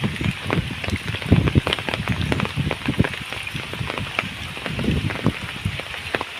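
Rain falling on water: an uneven patter of drops and splashes over a steady hiss.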